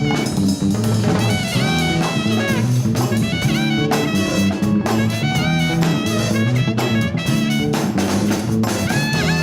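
Latin fusion band playing a jazzy instrumental passage: drum kit and percussion over a bass line, with a held melody line that bends in pitch.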